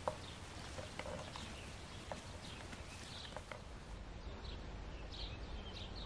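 Footsteps rustling through dry heather and grass, with scattered clicks. About four seconds in this gives way to small birds chirping in short, repeated high calls.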